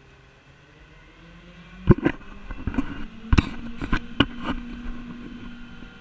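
A rear-loader garbage truck's engine hums and picks up pitch as the rear hydraulic controls are worked. A series of sharp metal clanks and knocks from the hopper mechanism follows, about six in two and a half seconds.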